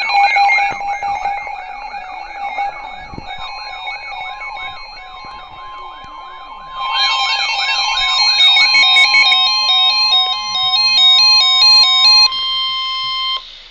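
Layered electronic alert tones. A siren wails quickly up and down, about two and a half times a second, until about eight and a half seconds in, over steady held tones. From about seven seconds a fast stepping run of beeping tones plays, and a single steady tone, the weather-radio attention tone, sounds from about three and a half seconds and cuts off suddenly just before the end.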